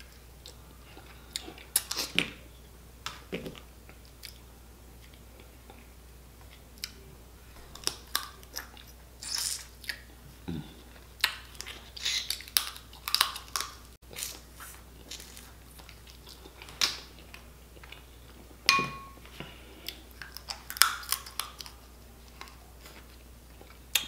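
Snow crab legs being eaten close to the microphone: chewing and biting, with irregular sharp cracks and clicks as the shells are broken open with the teeth.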